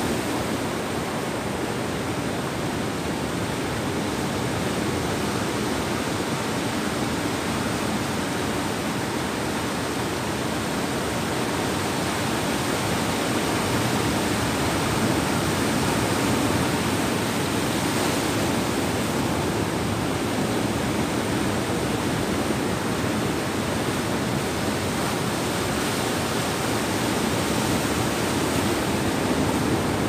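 Sea surf: waves breaking and washing up onto a sandy shore as a steady rush, swelling slightly about halfway through and again near the end.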